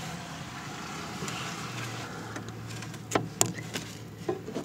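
Gloved hand rummaging inside a wooden desk cavity, with a few light clicks and knocks about three seconds in, over a steady low hum.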